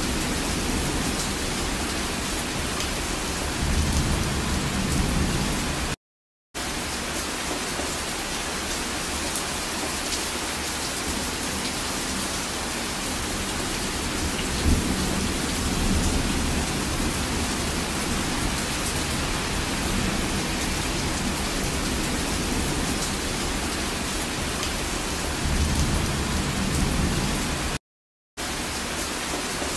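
Steady rainstorm: dense rain falling, with low rumbles of thunder swelling up three times. The sound cuts out completely for about half a second twice.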